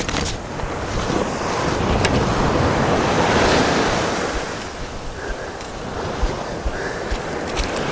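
Surf washing onto a beach, one wave swelling and easing off about three seconds in, with wind buffeting the microphone.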